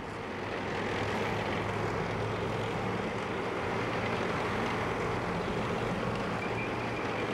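Engine of a tracked armoured personnel carrier running steadily: a low hum under a broad, noisy din that fades in over the first second.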